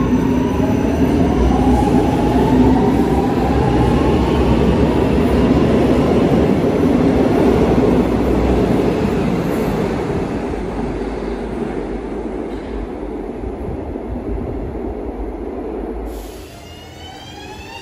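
Milan Metro Line 1 train pulling out of the station: its electric traction motors whine, rising in pitch as it accelerates, over the rumble of the wheels on the rails. The sound fades as the train runs off into the tunnel.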